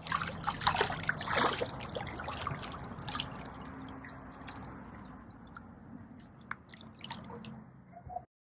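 Swimming-pool water splashing and dripping as someone moves about in it, busiest in the first few seconds and thinning out after; it cuts off abruptly just before the end.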